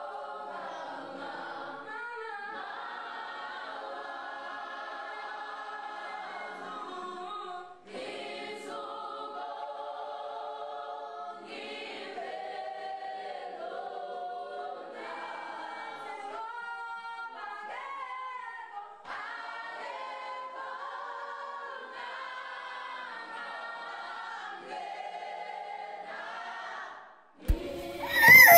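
Choral a cappella singing, sustained voices in long phrases, as soundtrack music. Near the end a sudden, much louder burst of sound cuts in.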